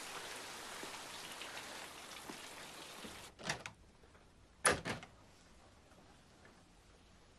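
A steady hiss that cuts off about three seconds in, then two pairs of sharp knocks on a door with a glass pane, the second pair louder.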